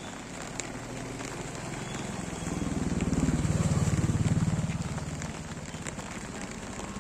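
A motor vehicle's engine passes close by, rising about two and a half seconds in, at its loudest midway, then fading.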